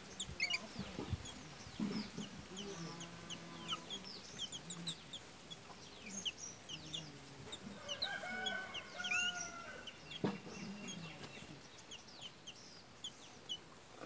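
A flock of babblers calling as they feed: many short, sharp, squeaky chirps throughout, with a louder burst of chattering calls about eight seconds in.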